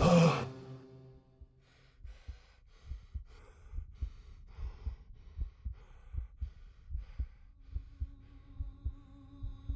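A heartbeat sound effect: low, dull thumps repeating about twice a second, with a faint pulsing hiss over them. A loud music passage cuts off about half a second in, and a sustained wavering tone fades in near the end.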